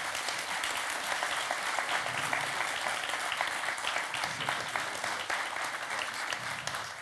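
An audience applauding: dense clapping of many hands that holds steady and begins to thin out near the end.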